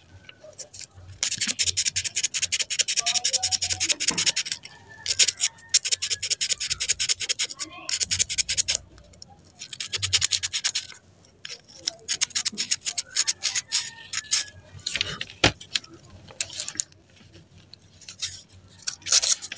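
Quick back-and-forth rubbing strokes by hand, in about seven bursts of one to three seconds, as a small metal part is scrubbed clean.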